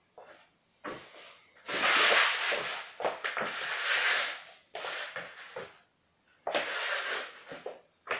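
Truckless skateboard deck sliding and scraping across a laminate floor under shoes, with short clacks as it is stepped on or knocked down. There are two longer scrapes, about two seconds in and about six and a half seconds in.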